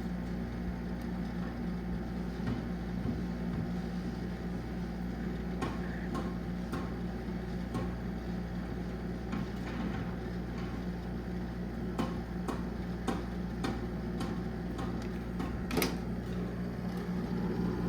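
A 1990s window air conditioner running steadily with its compressor on, giving a constant low hum under the fan's rushing air and a rumbling rattle, with a few faint clicks here and there.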